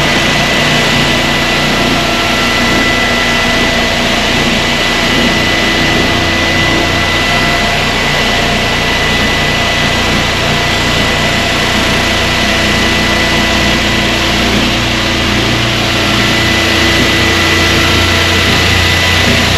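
Hyper Orbit floor sanding machine running steadily on a wooden floor: a loud, even motor drone with a thin, steady high whine over it.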